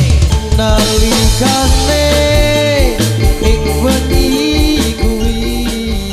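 Music: a sung melody over a band with drums and bass keeping a steady beat, starting to fade out near the end.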